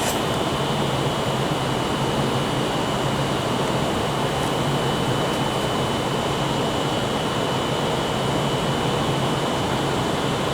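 Steady hum and rush of a train at a station platform, with a constant high-pitched whine over it.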